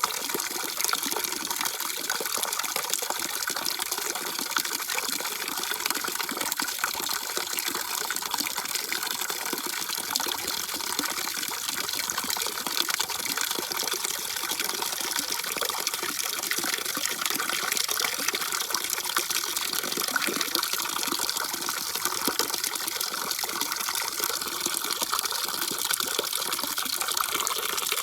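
Running water rushing steadily, a bright, even hiss with no breaks.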